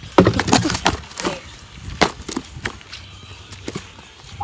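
Cardboard box being stomped and torn apart: a cluster of crunching, tearing impacts in the first second or so, then a few scattered single knocks.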